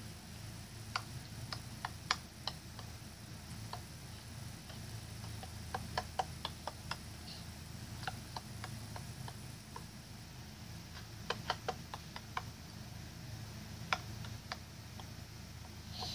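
Irregular clicks of a knife point tapping on a wooden tabletop between spread fingers, heard through a phone's speaker, coming singly and in short quick runs over a steady low hum.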